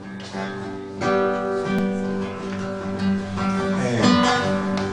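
Acoustic guitar playing chords, strummed and left to ring, with the chord changing a couple of times.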